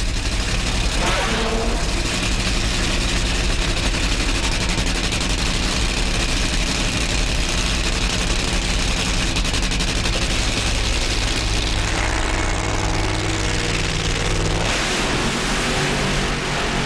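Two supercharged, nitromethane-burning V8 funny car engines running loud with a harsh crackle after being fired up, with the engine pitch sliding up and down about twelve seconds in as they are revved.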